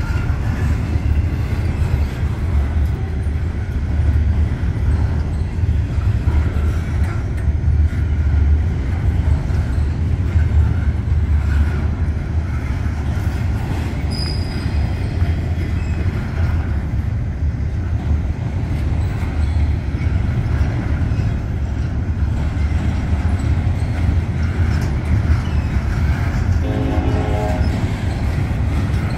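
Double-stack intermodal freight train's well cars rolling past: a steady heavy rumble of steel wheels on the rails, with a short pitched tone near the end.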